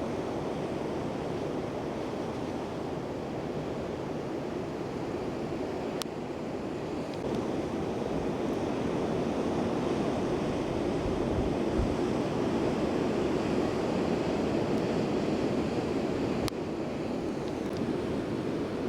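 Ocean surf rushing steadily, with wind buffeting the microphone; the rush swells louder for several seconds around the middle, and two sharp clicks break through.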